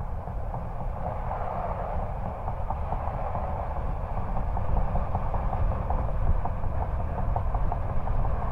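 2016 Range Rover Td6's 3.0-litre V6 turbo diesel running at highway speed, heard at the exhaust from outside the vehicle: a steady low rumble mixed with wind and road noise, with faint regular ticking. It grows gradually louder.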